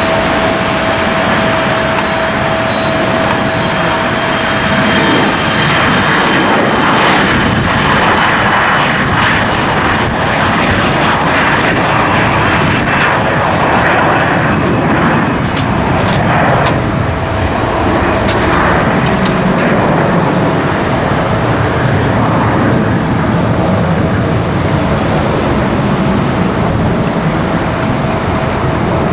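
Boeing 737-900ER airliner's CFM56 jet engines running at takeoff power, a loud steady rush with a steady tone and a high whine that sags slightly in pitch. A few sharp clicks come about halfway through.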